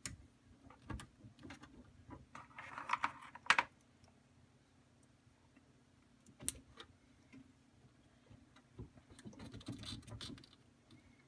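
Jumper-wire connectors being pushed onto 12 V battery terminals and the wires handled: scattered light clicks, with a denser clatter ending in a sharp click about three and a half seconds in, and another spell of fiddly clicking and rustling about nine to ten seconds in.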